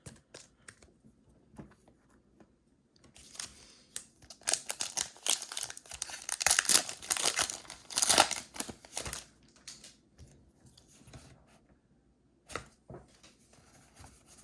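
Foil wrapper of a Pokémon card booster pack being torn open and crinkled, a crackling rustle lasting several seconds and peaking twice, with a few light clicks of cards being handled before and after.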